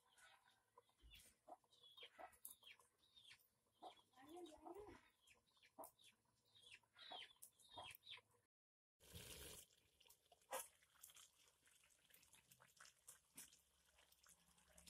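Domestic chickens clucking faintly: a string of short, high, falling calls with a lower wavering cluck midway. In the second half, scattered faint crackles from the wood fire.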